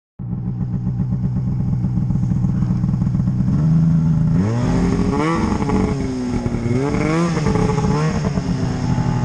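Snowmobile engine idling steadily, then revved up from about four seconds in, its pitch rising and falling several times.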